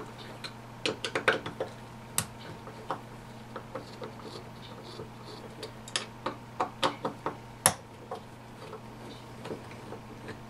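Irregular small clicks and taps of a screwdriver working the screws out of the head of a Pittsburgh 12 V air compressor, with small metal parts knocking on the bench; the loudest tap comes past the middle.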